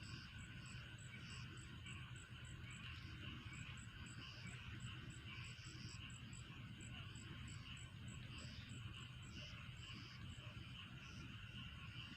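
Faint chorus of crickets chirping steadily: a regular high ticking about three times a second over a continuous buzzing chorus.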